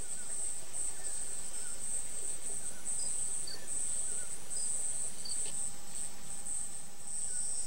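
Rainforest insects chirring in a steady, high-pitched pulsing drone, with a few faint short bird chirps.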